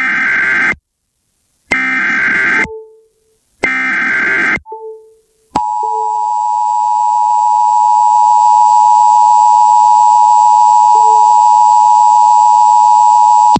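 Emergency Alert System broadcast tones. First come three one-second bursts of the SAME digital header, about a second apart. About five and a half seconds in, the steady two-tone attention signal begins and holds for about eight seconds, announcing the alert message that follows.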